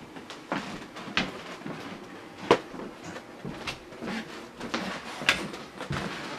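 Footsteps on a wooden floor: a handful of irregular knocks, the sharpest about two and a half seconds in and again near five seconds.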